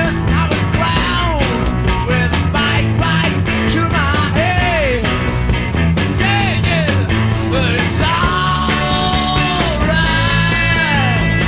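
Rock music with a steady drum beat and a lead melody that bends and slides in pitch.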